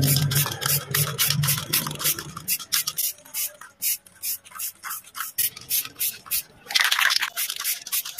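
Samurai aerosol primer can being shaken, its mixing ball rattling in quick, even strokes about four or five a second, with one short hiss of spray about seven seconds in. A low hum fades out over the first couple of seconds.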